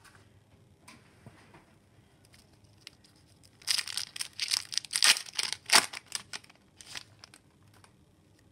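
The wrapper of a 2014-15 Upper Deck Series 1 hockey card pack being torn open and crinkled by hand. It is a burst of tearing and crackling from about four seconds in, lasting some three seconds. Before and after it there are only faint handling sounds.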